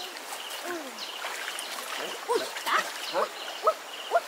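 Shallow stream water running, with a run of short, sharply rising calls, about two a second, starting about two seconds in. A faint high chirp repeats evenly in the background.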